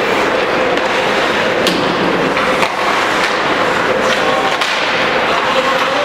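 Ice hockey play: skate blades scraping the ice, with a few sharp clacks of sticks and puck, over the steady din of the rink.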